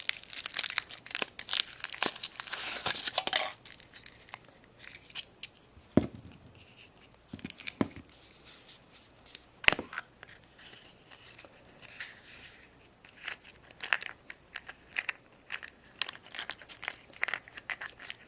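Foil wrapper of a Kinder Surprise chocolate egg being torn open and crinkled, densest for the first three or four seconds. Scattered clicks, taps and rustling follow as the egg is handled and opened.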